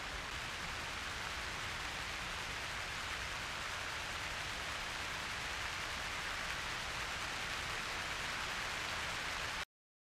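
Steady rain falling, an even constant hiss that cuts off abruptly just before the end.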